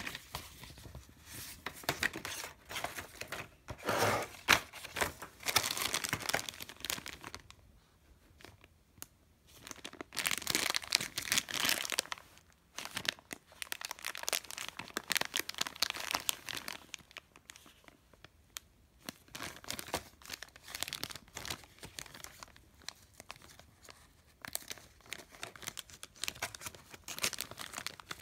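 A clear zip-lock plastic bag holding a cable, along with paper and cardboard packaging, crinkling and rustling as it is handled, in irregular bursts with a couple of short pauses.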